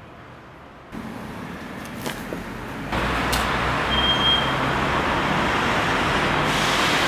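Street traffic noise: a steady rush of passing vehicles that gets louder about a second in and much louder about three seconds in, with a couple of sharp knocks and a brief high squeal.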